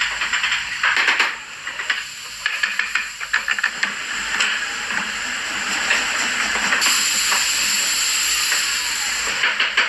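Woodworking shop noise: a steady hiss with runs of quick, evenly spaced ticks or taps. A brighter, higher hiss comes in about seven seconds in and stops shortly before the end.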